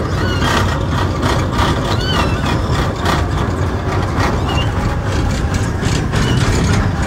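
Vehicle engine running steadily as it drives, with a dense low rumble and a few short, high squeaks now and then.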